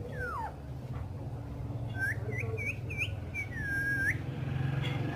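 Green parrot whistling: one falling whistle right at the start, then from about two seconds in a quick run of short rising whistle notes, ending in one longer whistle that dips and then rises.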